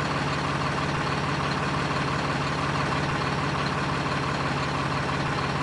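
A heavy vehicle's engine running steadily at an even speed, its firing pulses heard as a fine rapid throb.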